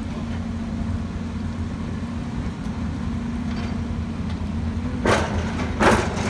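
Heavy diesel construction machinery running with a steady low hum. Near the end it is cut by two short, loud rushing bursts a little under a second apart.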